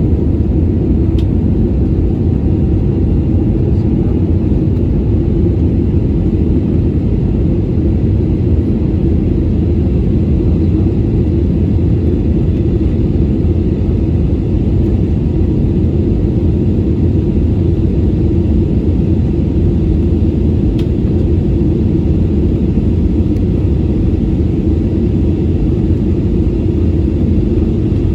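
Steady low rumble of an Airbus A320neo's engines and airflow heard from inside the passenger cabin, with no change in level.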